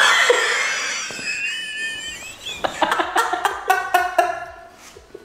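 A man and a woman laughing hard together: a loud burst that trails into a high, wavering squeal, then a run of quick pulsed laughs that fade out near the end.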